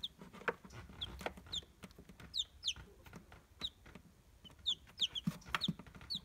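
Newly hatched chicks peeping: short, high chirps, a couple each second.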